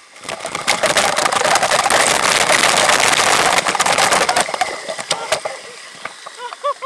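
Artificial waterfall pouring straight onto the camera: a loud rush of falling water full of rapid spattering hits. It eases off after about four and a half seconds and dies down to splashing.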